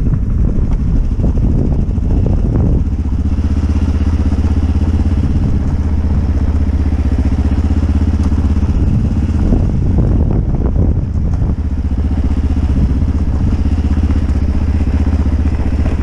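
Motorcycle engine running steadily while riding along a dirt track, heard from the rider's helmet; the engine note shifts a couple of times, about three seconds in and again around ten seconds.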